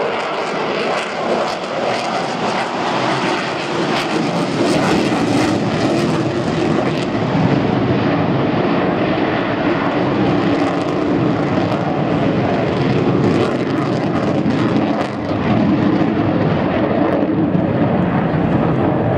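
Fixed-wing aircraft engine noise, loud and continuous, with some crackle in the first few seconds.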